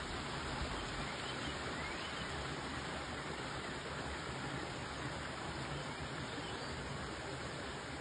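Small rocky stream rushing over stones: a steady, even hiss of running water, with a few faint bird chirps.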